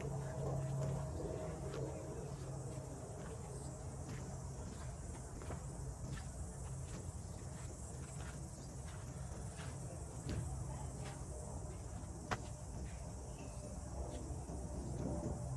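Outdoor ambience: a steady high insect-like hiss with scattered light clicks or taps, and one sharper click about twelve seconds in.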